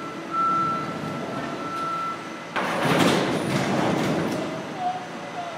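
Galvanized steel feed silo being pulled over by a cable: a steady high whine over a low rumble for the first couple of seconds, then a sudden loud crash of grinding, scraping sheet metal about two and a half seconds in that fades over the next two seconds.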